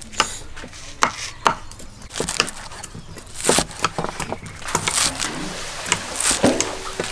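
Cleaver chopping green onions on a round wooden chopping board: a run of irregular knocks as the blade cuts through the stalks into the wood.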